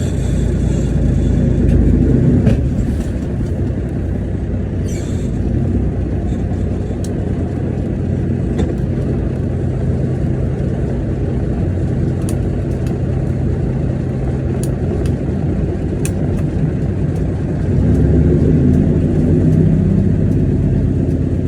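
International 9900 semi truck's diesel engine running on the road, a steady low drone that swells louder near the start and again near the end.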